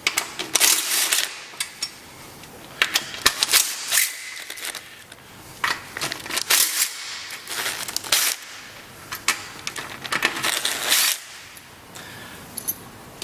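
DeWalt cordless impact driver hammering in several short bursts a few seconds apart as it backs out small 5 mm hex-head bolts from a motorcycle's seat brackets.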